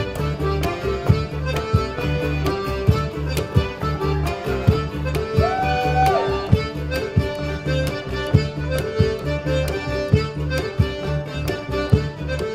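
Live traditional folk dance music: fiddle with acoustic guitar and double bass playing a lively tune over a steady beat.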